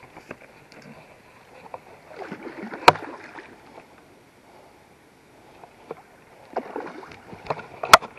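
Water splashing as a hooked carp thrashes at the surface during the fight, in two spells with a quieter stretch between. A sharp knock comes in each spell, about three seconds in and near the end.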